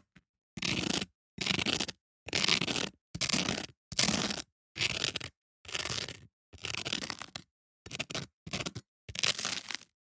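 Dry toast being crunched in about a dozen short, crisp strokes with brief pauses between them.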